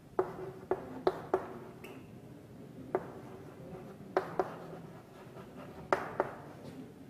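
Chalk writing on a blackboard: a string of sharp, irregular taps as the chalk strikes the board, with faint scratching between them.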